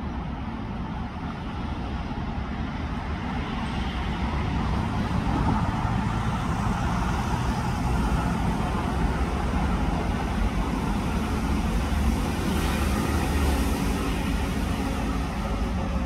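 Steady outdoor background noise: a low rumble with a hiss above it, growing a little louder a few seconds in, with no distinct events.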